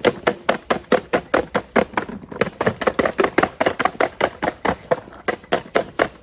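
A rapid, even run of sharp taps or knocks, about four to five a second, without a break.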